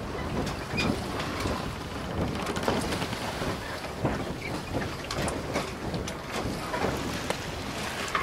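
Ambient noise aboard a slow-moving canal boat: wind rumbling on the microphone, with water lapping and many short crackles and clicks throughout.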